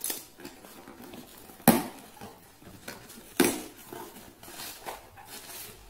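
A cardboard shipping box being opened by hand: tape pulled away and flaps folded back, with cardboard and paper rustling and two louder sharp clatters a second and a half apart.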